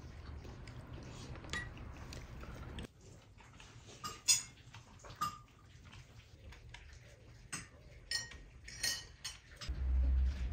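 Light clinks and taps of dishes and cutlery, scattered and irregular, the loudest about four seconds in, over a low hum that stops abruptly about three seconds in and comes back near the end.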